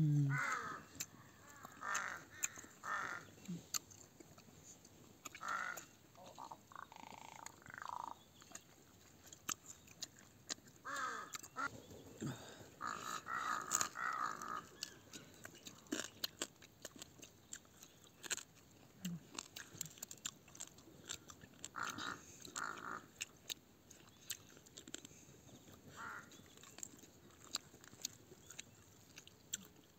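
Crows cawing on and off, single calls and short runs, with faint scattered clicks between them.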